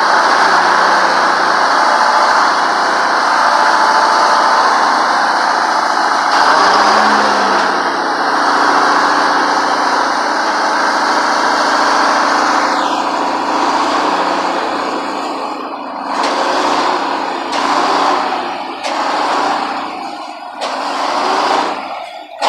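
GM Detroit blown inline-six two-stroke diesel of a 1954 LeTourneau-Westinghouse Tournarocker running loud and steady. After about 14 seconds its sound swells and falls back several times.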